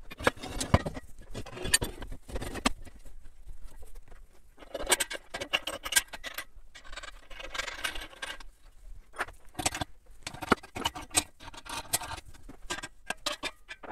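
Steel square tubes and bolt-on fittings of a frame jig being handled and fitted together: irregular metal clinks, knocks and scrapes as the base is set onto its legs.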